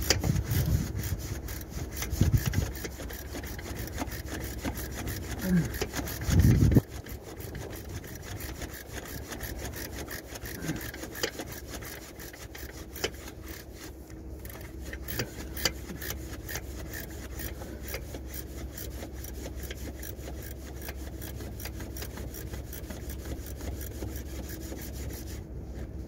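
Ratchet wrench clicking quickly and evenly as a bolt is worked in the engine bay, with cloth brushing against the microphone. Heavier rubbing and knocks come in the first seven seconds.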